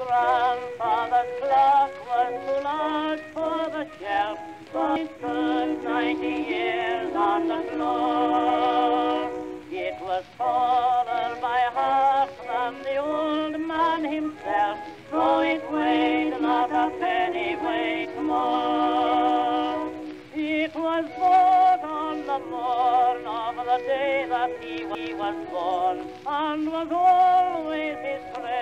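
Background music with a melody that wavers in a strong vibrato, in a recording that sounds dull, with no highs.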